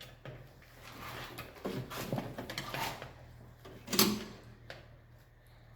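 Handling noise from work on an electrical distribution board: rustling and small clicks of parts and cables being moved, with one sharp knock about four seconds in.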